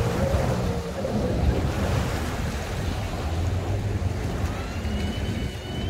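Wind buffeting the microphone over choppy lake water, with a steady low rumble.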